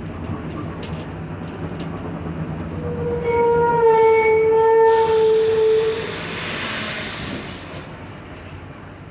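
Mercedes-Benz OF-1721 bus in motion, its rear differential whining: a strong tone with several overtones that rises in about three seconds in and holds for about three seconds before fading. About five seconds in, a long, loud hiss starts and cuts off about three seconds later.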